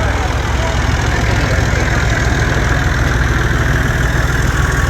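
A heavy engine idling steadily with a low, even rumble, likely the tractor that tows a parade float.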